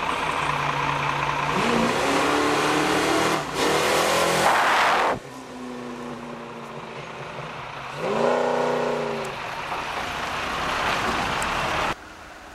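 A car engine running, revving up about a second and a half in, then a loud rushing noise for under two seconds. The engine settles lower, revs up and down again about eight seconds in, and the sound drops off abruptly near the end.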